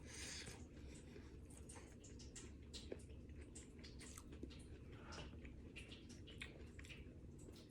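Faint chewing of a mouthful of a microwaved quinoa, chickpea and vegetable meal, with scattered small irregular clicks over a low room hum.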